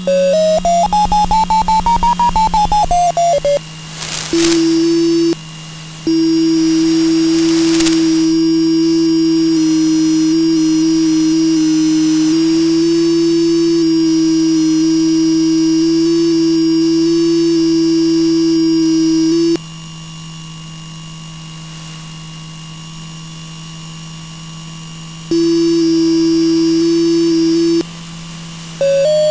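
Electronic guidance tones: a fast beeping tone rising in pitch for about the first three seconds, then a steady lower tone that cuts out and comes back several times, over a constant hum. Two short bursts of hiss about four and eight seconds in.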